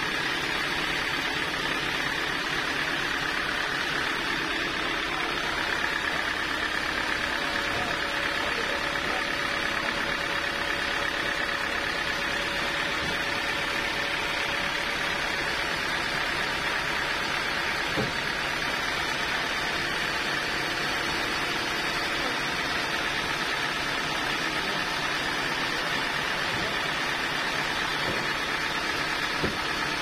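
Band sawmill machinery running steadily between cuts, a constant hum with a faint high whine. A single knock a little past the middle.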